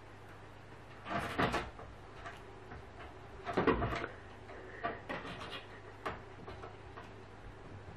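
Knocks and clattering bumps of objects, in two louder clusters about one and three and a half seconds in, then a few fainter single taps, over a low steady hum.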